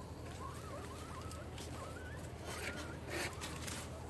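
A faint, wavering whistle-like animal call that rises in pitch about two seconds in, over a steady low hum, with a few brief rustles.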